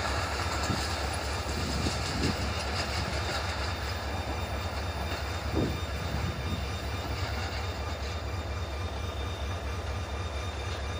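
Low, steady rumble of a Pakistan Railways express passenger train's coaches running away down the track just after passing.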